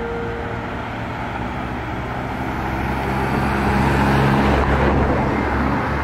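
A car driving past on the street, its engine and tyre noise rising to a peak about four to five seconds in and then fading.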